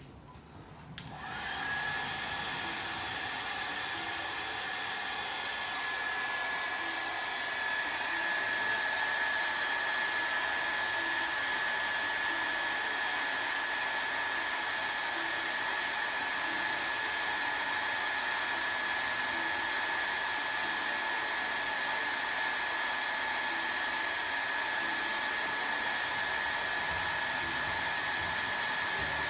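An electric blower motor starts about a second in and runs steadily: a rush of moving air with one steady whine on top.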